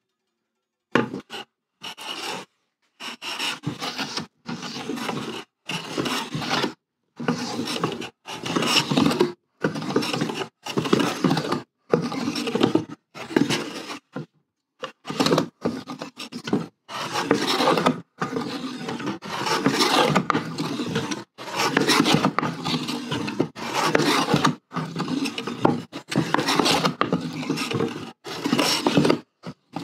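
Metal bench plane cutting along an old, grimy wooden workbench top, taking off the dirty surface layer. It makes a steady run of strokes, about one a second, each a short rasping swish followed by a brief pause.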